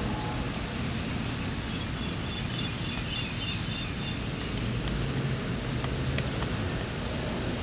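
Outdoor ambience: a steady low rumble and hiss, with a bird chirping in a quick series about two to four seconds in.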